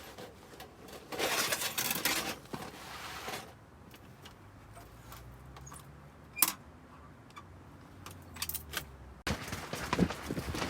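Rustling and small clinking handling noises, with one sharp click about six seconds in, then a louder gusty rush near the end.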